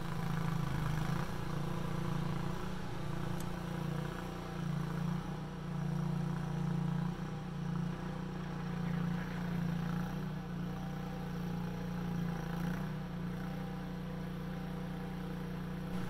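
Vermeer CTX50 mini skid steer engine running steadily while the machine works, its level rising and falling slightly as it drags a cedar log with its grapple.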